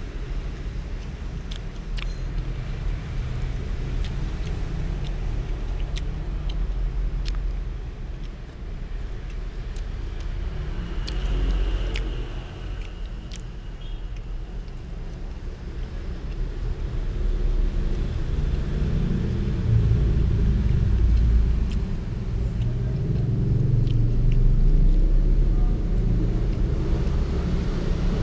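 A steady low rumble that grows louder in the second half, with a metal spoon clinking sharply against a glass plate now and then, mostly in the first half.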